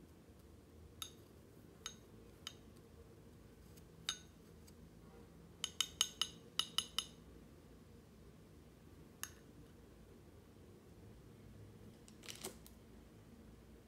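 Chopsticks tapping and clicking against a porcelain teacup while a candied orange peel strip is turned in sugar. There are a few scattered single taps, a quick run of about seven taps around the middle, one more later and a double tap near the end.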